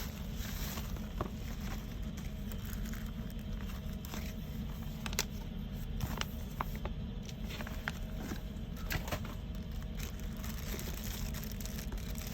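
Packaging being handled: scattered light clicks and rustles, over a steady low hum.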